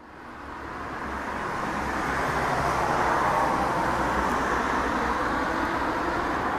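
Jet airliner overhead, its Rolls-Royce Trent 700 engines heard from the ground as a steady, even roar. The sound swells over the first couple of seconds, then holds steady.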